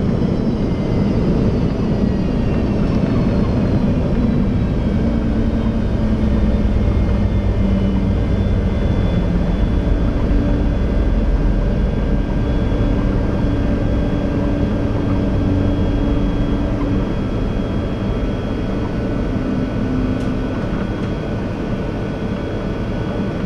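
Boeing 737-200's Pratt & Whitney JT8D jet engine in reverse thrust on landing rollout, heard from the cabin: a loud rumble with a high whine falling in pitch as the engine spools down. The clamshell reversers are stowed by midway, and the rumble of the decelerating aircraft eases off toward the end.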